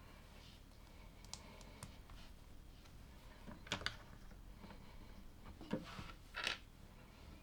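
Plastic LEGO pieces being handled and snapped together: faint scattered clicks, with two sharp clicks close together a little past the middle and two more near the end.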